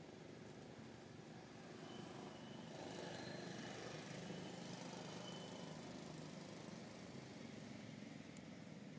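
Faint outdoor ambience with a low, steady motor hum that grows a little louder a few seconds in.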